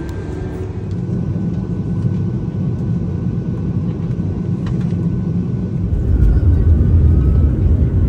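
Low, steady rumble of a vehicle in motion, heard from on board; it grows louder about six seconds in.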